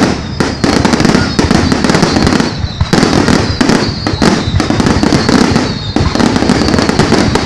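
Fireworks display: a dense, loud volley of bangs and crackles going off in quick succession without a break.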